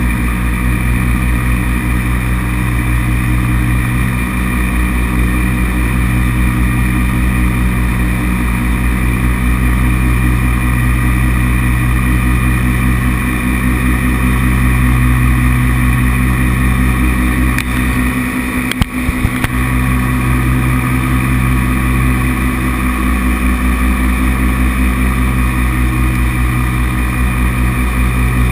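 Paramotor's engine and propeller running steadily in flight, with a couple of sharp clicks about two-thirds of the way through.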